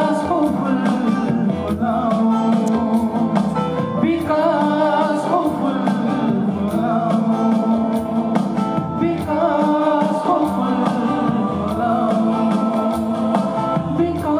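Live band music with a singer, electric bass and acoustic guitar playing steadily under the vocal line.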